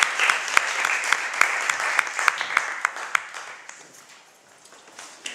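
A small audience applauding, individual claps distinct, the clapping thinning out and dying away about three to four seconds in.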